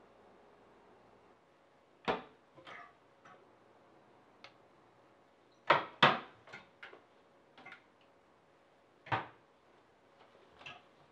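Wooden kitchen cupboard doors being opened and shut one after another, a string of sharp knocks and bangs at irregular intervals. The loudest are a pair of bangs about six seconds in.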